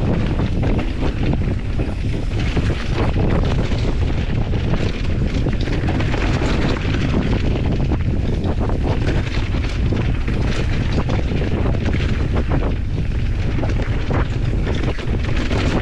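Steady wind rumble on the microphone of a mountain bike riding a dirt singletrack, with frequent short knocks and rattles from the bike jolting over the rough trail.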